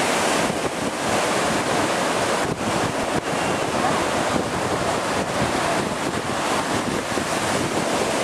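Heavy storm surf breaking and rushing in, a loud, steady wash of water, with wind buffeting the microphone.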